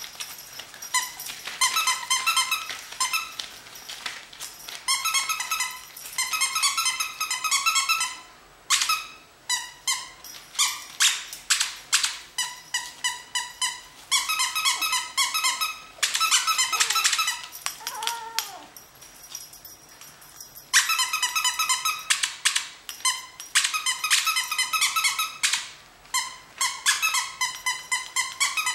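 Toy goldendoodle puppy yapping: runs of rapid, high-pitched squeaky yips, several a second, with a short falling whine about halfway through and scattered sharp clicks.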